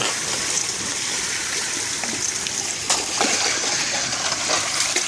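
Water rushing steadily, with a few brief splashes about three seconds in as a catfish is grabbed by hand in shallow water.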